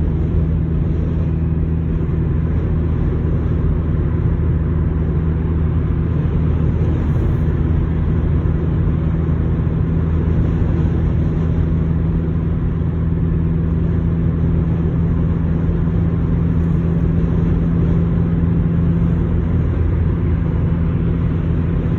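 Steady low drone of a car's engine and tyres at highway speed, heard from inside the cabin.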